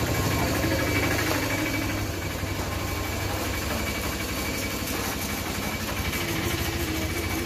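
An engine running steadily at idle, a low steady hum.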